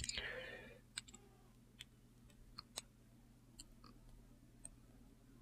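Near silence: a brief rustle at the start, then a few faint, scattered clicks of hands handling the sharpness tester and its test media.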